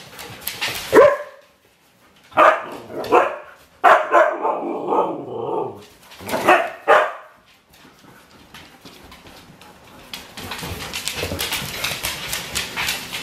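Husky-type dogs barking in rough play, several short loud barks over the first seven seconds. Near the end come the scratchy clicks of claws scrabbling on a wooden floor as a dog runs.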